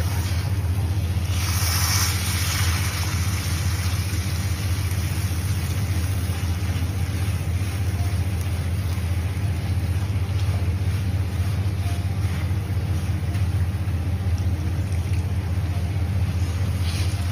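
A steady low hum throughout. About a second and a half in, a brief sizzling hiss as milk is poured into the hot, ghee-fried moong dal in the wok.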